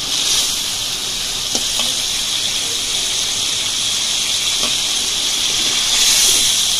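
Fish head frying down in a thick bubbling onion-garlic spice paste in a pan, a steady sizzling hiss, with a couple of faint taps of a metal spatula.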